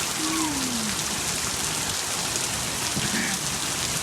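Steady rain falling, an even hiss of downpour.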